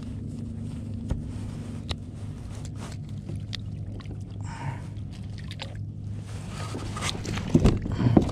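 Water sloshing against a plastic sit-on-top kayak, with scattered knocks and clicks of handling over a steady low hum. Near the end come several loud thumps as a large fish is hauled onto the kayak's deck and thrashes there.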